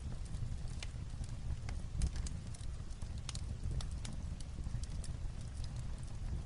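Light rain on a roof mixed with a wood fire crackling in a fireplace: a steady low rumble under irregular sharp clicks and pops.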